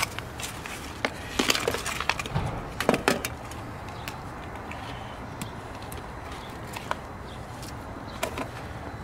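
Hands pressing and firming soil around a plant in a plastic tub: scattered crackles, taps and rustles, busiest in the first three seconds, then only occasional ticks over a steady background hum.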